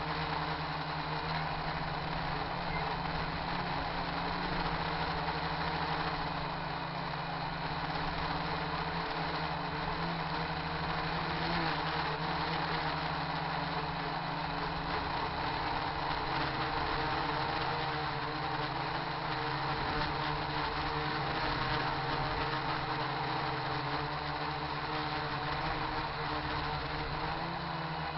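RC quadcopter's electric motors and propellers buzzing steadily in flight, heard through a camera carried on the craft, with wind noise over it.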